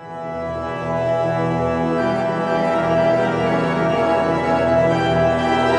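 Background music of sustained organ-like keyboard chords, fading in at the start and changing chord about two seconds in.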